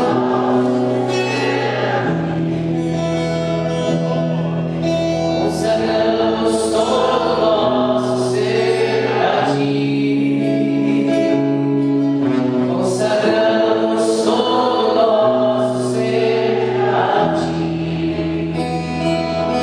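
Live worship song: a man singing to his own acoustic guitar, with sustained low chords underneath that change every few seconds.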